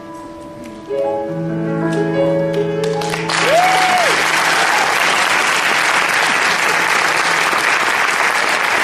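Closing piano notes of the song, soft chords over a held low note. About three seconds in, audience applause breaks out, with one short cheer rising and falling, and the applause runs on steadily.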